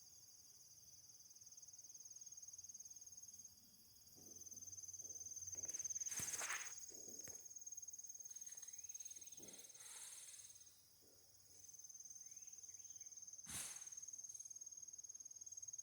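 A high, steady insect trill that drops out briefly twice, with faint rustling and a sharp click near the end.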